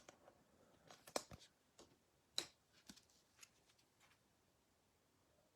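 Faint, scattered clicks and light rustles of trading cards and their packaging being handled.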